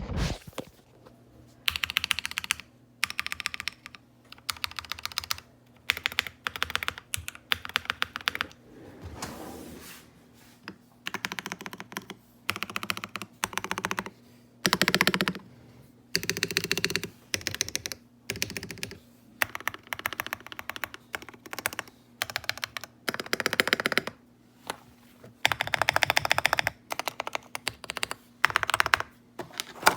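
Typing on a custom keyboard: rapid keystrokes come in runs of about a second, with short pauses between them.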